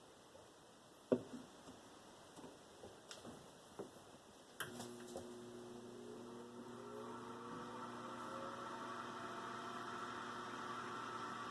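Whirlpool convection oven's fan switching on during preheat: a few light clicks, then a sharp click about halfway through, after which a steady hum starts and a whine rises in pitch as the fan spins up, growing slowly louder.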